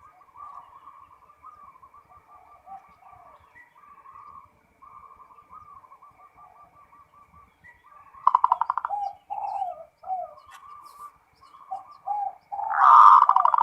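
Zebra dove (perkutut) cooing: a run of soft, quick coo notes, then a louder, rapid trilled coo about 8 seconds in, short falling coos, and another loud trill near the end.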